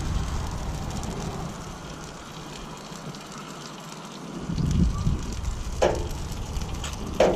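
Barbecue sauce sizzling and crackling on the hot grill grate as chicken leg quarters are basted with a squeeze-bottle silicone brush. Wind rumbles on the microphone, easing off in the middle, and there are two sharp clicks in the last couple of seconds.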